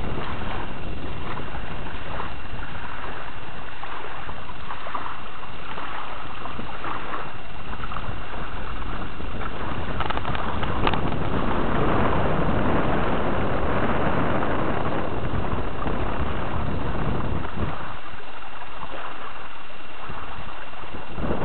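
Wind buffeting the camera microphone: a steady rushing noise that thins in the low end for a few seconds near the end, with a couple of faint clicks about halfway through.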